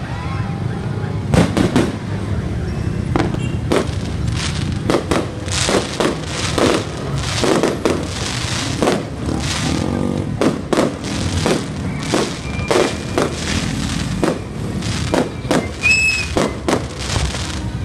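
Aerial fireworks shells bursting one after another: a dense string of sharp bangs, often less than a second apart, over a steady low rumble.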